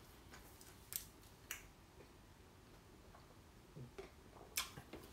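Near silence: faint room tone broken by a few soft clicks, one about a second in, another half a second later and one near the end.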